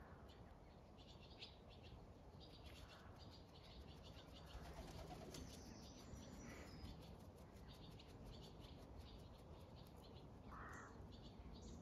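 Faint birdsong: quick runs of short, high chirps.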